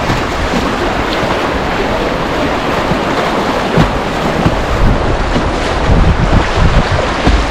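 Whitewater of a river rapid rushing loud and steady, with low thumps of wind and water buffeting the microphone that grow stronger in the second half.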